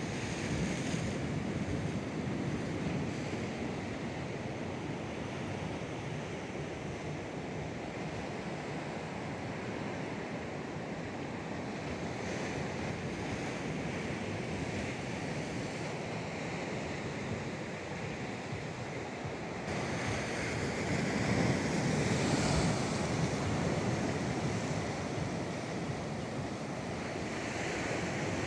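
Indian Ocean surf breaking on a rocky reef and beach, a continuous wash of waves with wind on the microphone. The surf swells louder about two-thirds of the way through and again near the end.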